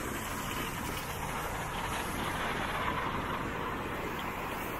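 Steady city street noise with road traffic, heard while riding a bicycle.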